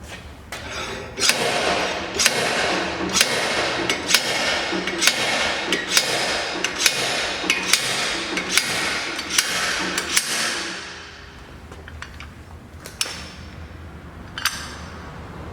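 Hammer-type hub puller on a Honda Fit's front wheel hub: a rapid run of sharp metallic blows, about two a second for some ten seconds, knocking the hub out of the wheel bearing. The blows then stop, and two lighter knocks follow near the end.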